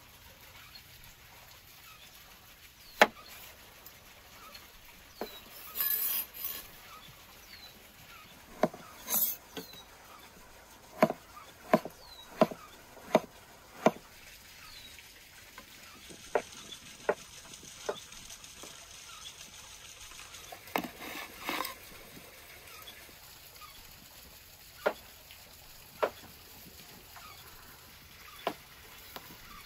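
Sharp, irregular knocks, coming in a quicker run of about one a second around the middle, with a few short scraping clatters between them.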